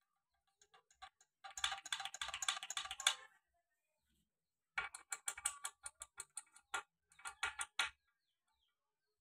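Sharp metal clicks and taps as new release fingers, pins and lock clips are fitted into a Mahindra Arjun 555 tractor's clutch pressure-plate cover. A rapid run of clicking is followed, after a pause, by a second series of separate clicks and taps.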